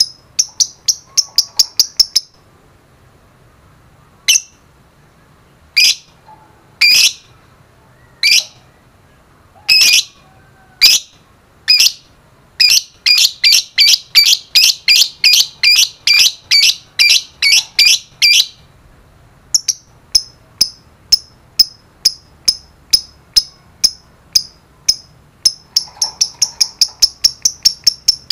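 Fischer's lovebird chirping: short, sharp, high chirps, some in fast runs of several a second (the rapid ticking series that lovebird keepers call 'ngetik'), others single and louder with gaps between them.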